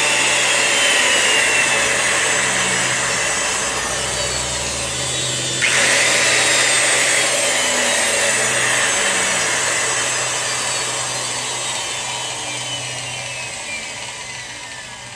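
Makita 5007NB 7 1/4-inch circular saw running. Its motor and blade whine slowly falls in pitch as it winds down. About five and a half seconds in, the trigger is pulled again and it jumps back up to speed, then coasts down again, fading toward the end.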